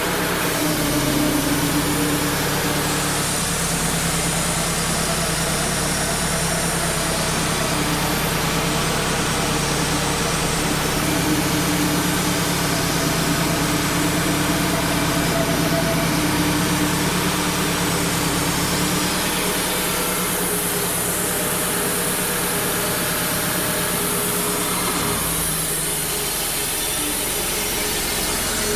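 Wood-Mizer LT35 band sawmill running steadily under load as its blade saws a slab through a knotty oak log; the sound changes near the end.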